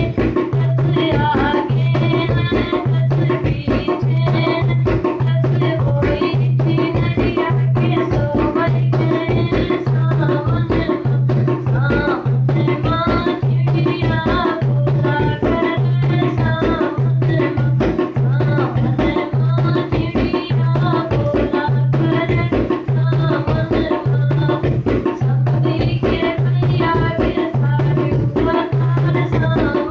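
Hindi folk song: a wavering sung melody over a steady tabla-like hand-drum beat with a shaker-like rattle.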